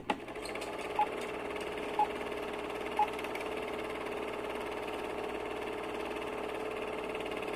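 Old film-projector sound effect: a steady mechanical whirring rattle that starts with a click. Three short beeps a second apart sound over it about a second in.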